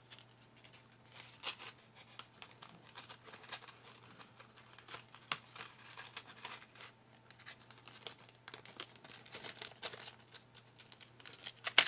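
Small pieces of costume jewellery being handled: light crinkling and scattered small clicks, with one sharper click near the end.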